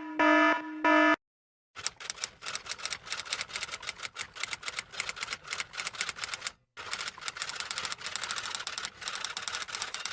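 Mechanical typewriter keys typing rapidly, a dense run of irregular clicks with a brief pause partway through. Before it, about the first second holds the end of an electronic beeping alarm, about two beeps a second.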